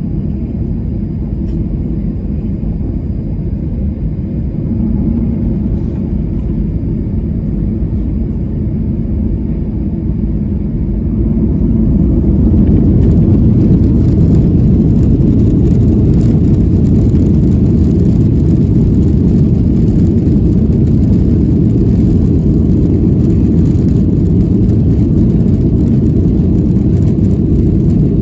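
Airliner's jet engines and rumble on takeoff, growing louder about twelve seconds in as the plane powers up, then holding a steady, heavier rumble.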